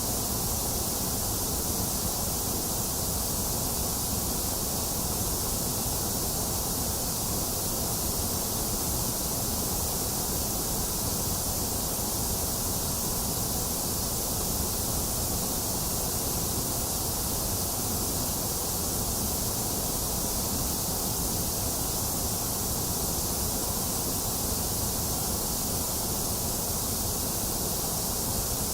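Steady electronic white noise for sleep: an even, unbroken hiss, bright at the top with a low rumble beneath and a slightly hollow middle.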